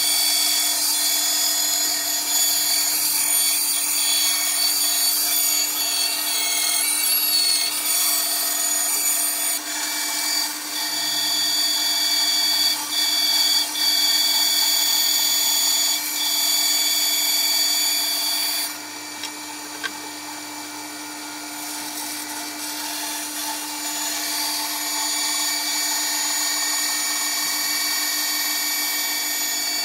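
Bandsaw running and cutting a curved line through a wooden board, with a steady high whine. The sound drops about two-thirds of the way through, then builds up again.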